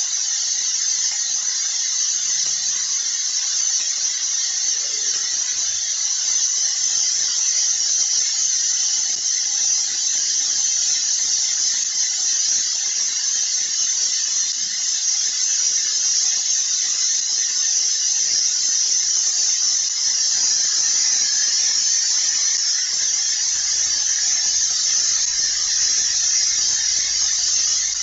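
A steady, high-pitched hissing noise that runs unbroken at an even level, with a faint thin tone beneath it.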